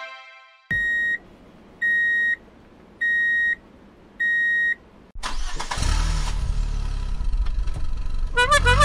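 Four short electronic beeps at one pitch, about a second apart, like a race-start countdown. Then, a little after halfway, a louder car engine sound effect starts and keeps running.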